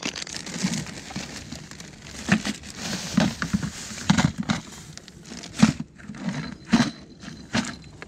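Plastic bags rustling and crinkling in irregular spurts as they are handled and pulled out of a plastic bucket, with a few dull knocks.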